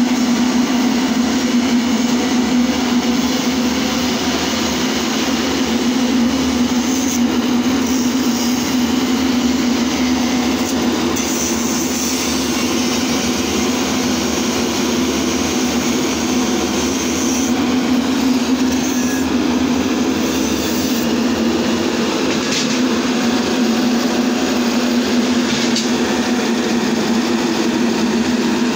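Kapmix APG M30 anti-smog mist cannon running: its large fan and motor give a loud, steady drone with a strong constant hum and a wide rushing hiss over it.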